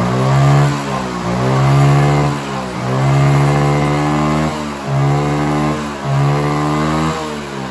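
Honda CG 160's single-cylinder four-stroke engine revved in about five blips, each rising and falling in pitch. The engine is held back by a clogged air filter.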